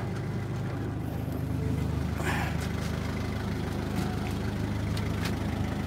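Isuzu Elf 150 camper truck's engine idling steadily, with a few light clicks and knocks over it.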